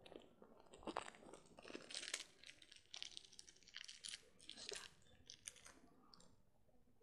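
Faint, irregular crinkling and crunching of something small being handled close to the microphone, thinning out near the end.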